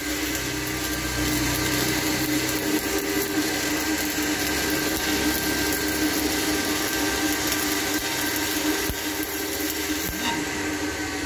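Electric arc welding inside a pipe: the steady hiss and crackle of the welding arc laying a pass along the joint's gap, over a continuous hum with a few steady tones.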